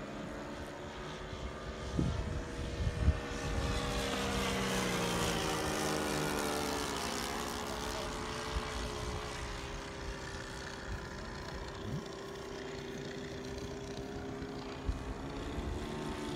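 Propellers of several radio-controlled model warplanes droning overhead at once, their engine tones overlapping; one sweeps past about four to seven seconds in, its pitch falling. A few low thumps come about two to three seconds in.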